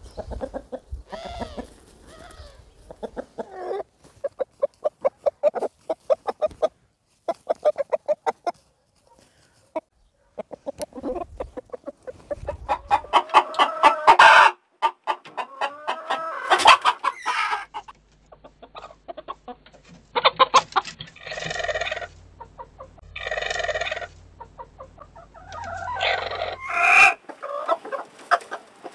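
Domestic chickens clucking and calling: runs of quick clucks in the first several seconds, then louder, longer calls, several in a row near the end.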